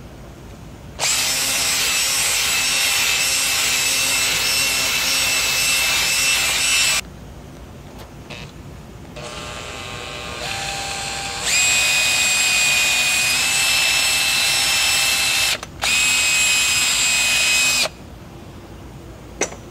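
Cordless handheld vacuum running with a steady high motor whine as it sucks leftover brake parts cleaner out of an injector bore, so the engine will not hydrolock. It switches on about a second in and runs for about six seconds, runs more quietly for a couple of seconds, then runs full again with a brief stop near the end.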